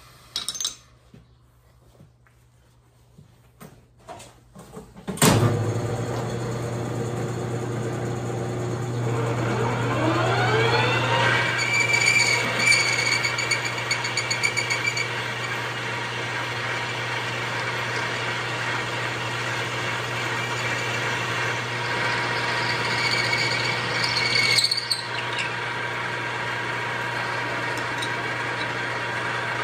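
A metal lathe is switched on about five seconds in, after a few clicks. Its hum rises in pitch as it comes up to speed, then it runs steadily while a 1-inch drill bit bores through a square metal block, with a high whine from the cut coming and going.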